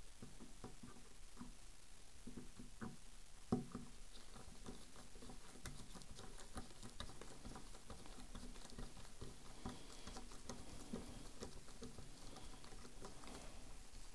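Faint, irregular small clicks and scratches of nitrile-gloved fingers handling the rifle's receiver and turning a screw into it by hand, with one sharper click about three and a half seconds in.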